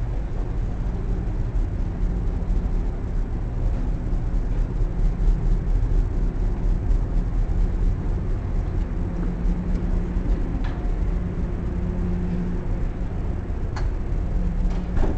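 Steady low rumble and hum of a cruise ship's machinery and ventilation in a cabin corridor, with faint soft ticks from footsteps on carpet and a couple of light clicks near the end.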